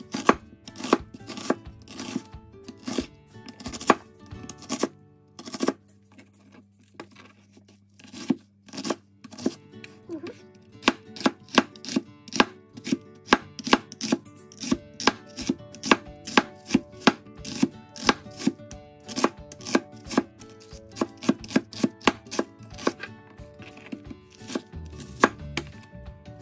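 Large kitchen knife chopping a white onion into strips on a plastic cutting board: a steady run of sharp knife-on-board knocks, about two to three a second, pausing for a few seconds about five seconds in.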